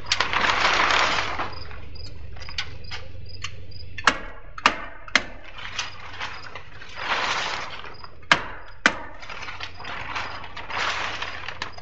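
A stapler driving staples through plastic house wrap into wall sheathing: sharp snaps, singly and in quick runs of two or three. Between the staples the sheet of wrap rustles and crinkles as it is pulled and smoothed flat, loudest at the start.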